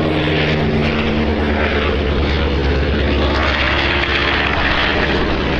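Martin JRM-3 Mars flying boat's four radial piston engines and propellers droning loudly and steadily as the aircraft flies past, with a low, even propeller hum under the engine noise.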